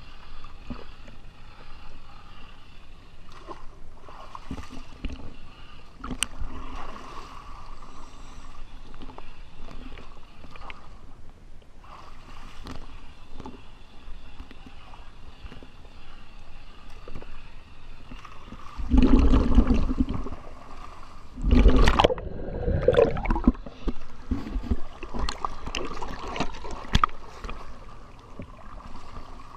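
Water splashing and gurgling against a boat hull at the waterline as a handheld hull-cleaning tool is worked over it, with two loud splashes about two-thirds of the way through. A faint steady whine sits underneath.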